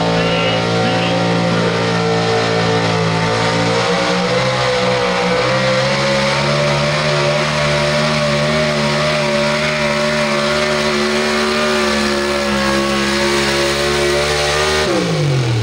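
Pro Stock 4x4 pulling truck's engine held at high revs, loud and with its pitch nearly steady; near the end the revs fall quickly as the throttle is let off.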